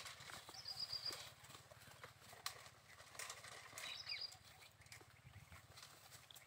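Goats browsing in dry brush: faint rustling of leaves and scattered snaps and clicks of twigs. A small bird gives a short, high chirping trill twice.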